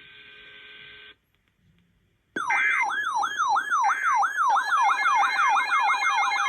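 A faint radio hiss stops about a second in and is followed by a moment of silence. About two seconds in, a loud electronic siren-type alert tone starts. It wails in fast, evenly repeated downward sweeps, about three a second, with higher alarm tones layered over it.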